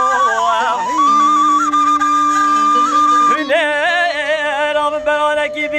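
Kurdish kocerî folk music: a melody over a steady drone. The melody glides down near the start, holds one long high note for about two seconds, then comes back as a wavering, trilled line.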